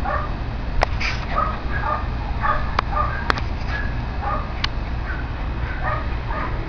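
Small Shih Tzu dog yipping in short, quick yaps, over and over, eager for its tennis ball. A few sharp clicks fall in between.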